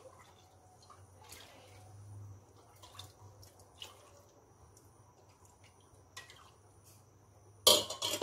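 Faint, scattered pops and drips from a pot of mee rebus gravy heating on the stove, over a low hum. Near the end a brief loud knock and clatter.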